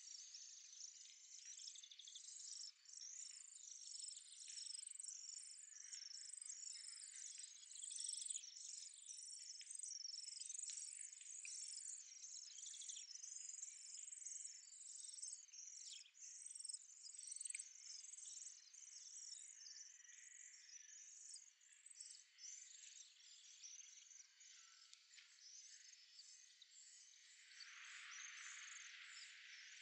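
European greenfinch nestlings begging while being fed: faint, rapid, high-pitched cheeping that thins out after about twenty seconds.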